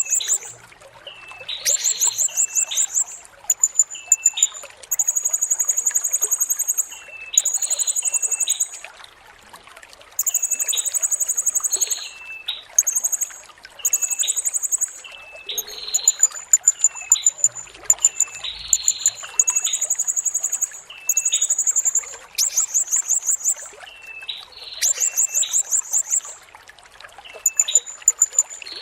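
Blue-crowned hanging parrot (serindit) calling: high, buzzy trills in bursts of about a second, repeated every second or two, with short, lower chirps between them, over a faint steady hiss.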